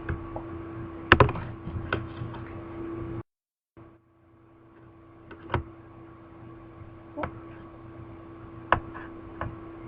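Scattered sharp clicks and knocks, about six in all, over a steady electrical hum, with the sound cutting out completely for about half a second a little after three seconds in.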